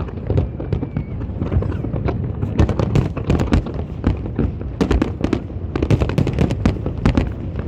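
Fireworks display: many firework shells bursting in quick, irregular volleys of sharp bangs and crackles over a continuous low rumble.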